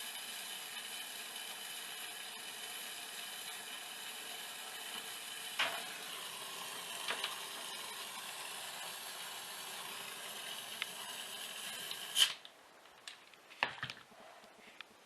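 A small electric motor whines steadily at several fixed pitches, then is switched off with a sharp click about twelve seconds in. A few light knocks and clicks follow.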